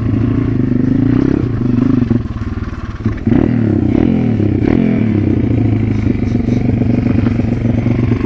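MRF 140 RC pit bike's single-cylinder four-stroke engine running, blipped up and down a few times in the first half and then holding a steady speed.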